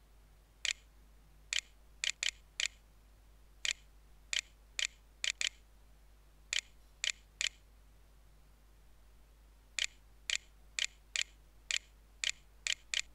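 Computer mouse button clicking: about twenty sharp single clicks in uneven runs, one for each letter picked on an on-screen keyboard, with pauses of a second or two between runs.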